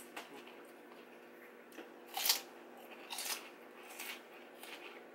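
Chewing crisp food close to the microphone: a few sharp crunches about a second apart, the loudest about two seconds in.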